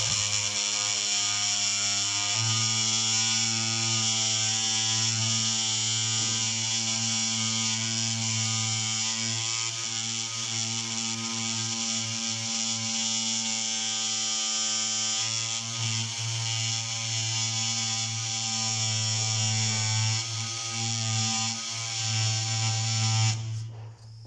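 Oscillating multi-tool (renovator) running steadily with its blade cutting into a polymer wall molding, a continuous buzzing hum that stops near the end.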